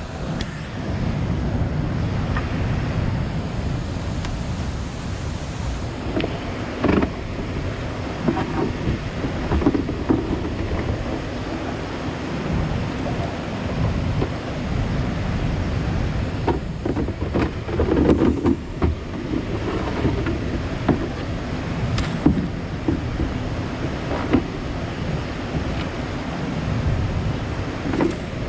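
Kayak gear being handled: scattered knocks, clatter and rustling from items moved around inside a plastic kayak. Under it runs a steady rushing noise.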